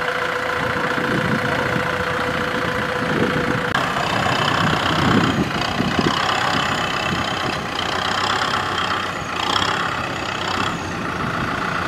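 Kubota farm tractor's diesel engine running steadily under load as it pulls a loaded trailer through deep mud. About four seconds in, the sound shifts to a louder, higher-pitched strain.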